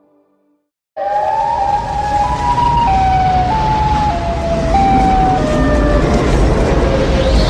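Tornado warning siren wailing outdoors. It starts suddenly about a second in, and its tone steps back and forth between two pitches while slowly sinking, over a heavy rumbling noise.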